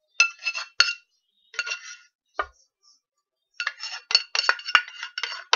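A spoon clinking and scraping against a saucepan while the last of the cream of mushroom sauce is scraped out of it: a few separate ringing clinks, then a quick run of clinks from about three and a half seconds in.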